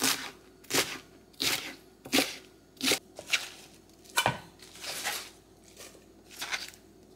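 Chef's knife slicing through bomdong (Korean spring cabbage) leaves onto a cutting board: short crisp cuts at a steady pace, about one every 0.7 s, roughly ten in all.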